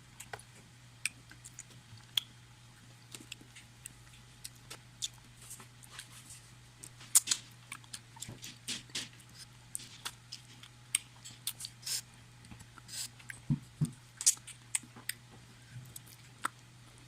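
Close-up eating of santol fruit: irregular wet mouth clicks, smacks and crunchy chewing, over a steady low hum.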